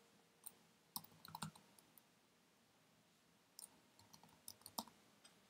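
Faint keystrokes on a computer keyboard: a few scattered clicks in two small clusters, about a second in and again around four to five seconds in.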